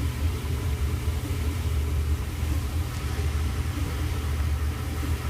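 LG-built Kenmore Elite dryer running in its steam refresh cycle with a steady low rumble.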